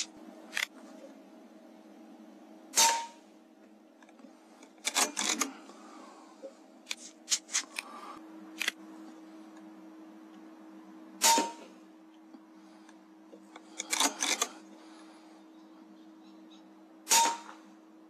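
Three sharp shots from an AGT Uragan 2 FAC air rifle, about eight and then six seconds apart, each followed by a short ping. Smaller clicks and knocks come between the shots, over a faint steady hum.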